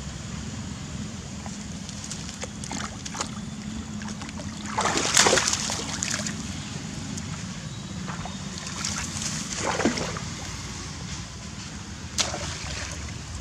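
Water splashing and sloshing as a young macaque moves through shallow pond water. There are two loud bursts, about five seconds in and again near ten seconds, and a short sharp one near the end.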